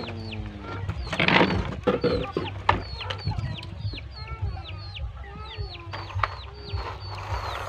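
Chickens calling: many short, high peeps that fall in pitch, several a second, with some lower clucking calls. A few knocks and a clatter stand out about a second in.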